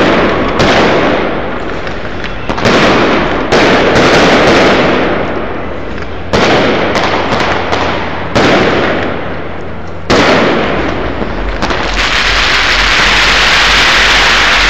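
Aerial fireworks shells bursting one after another, a loud boom about every two seconds, each trailing off as it fades. In the last few seconds the separate booms give way to a continuous loud din.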